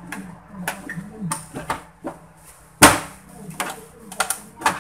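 Plastic back cover of a Samsung CRT television being fitted onto the set by hand: a run of plastic clicks and knocks, with one loud knock about three seconds in.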